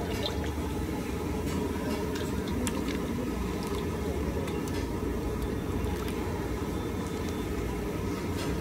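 Cooking oil poured in a steady stream from plastic pouches into a large iron kadhai, over a constant low rumble.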